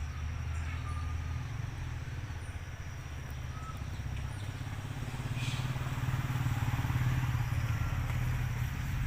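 Low engine rumble of a motor vehicle passing, growing louder about halfway through.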